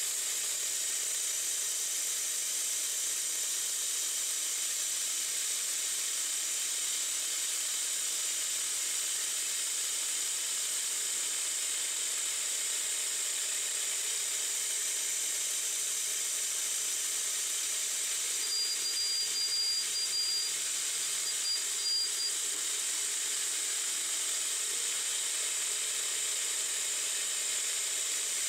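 Steady hiss of a mist coolant nozzle spraying the spinning workpiece on a 9x20 benchtop CNC metal lathe, with the spindle turning at about 700–800 RPM. A thin high whine comes and goes between about 18 and 22 seconds in.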